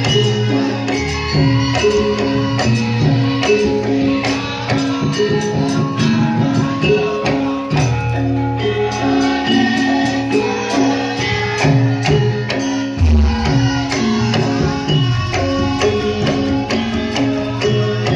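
Live band music, instrumental, with a busy percussion part over sustained melody and bass notes; a deep bass note comes in about two-thirds of the way through.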